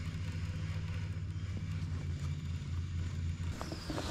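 Steady low hum of a small electric motor driving a kayak, cutting off about three and a half seconds in, followed by a few light clicks of handling.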